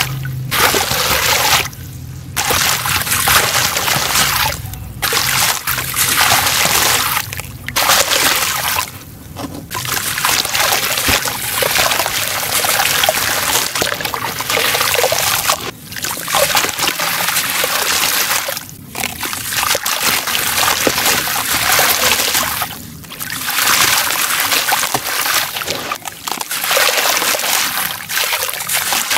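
Dusty, crumbly chunks being broken up by hand in a plastic tub of water: splashing, trickling and sloshing in bouts as the pieces crumble and sink, with brief pauses every few seconds.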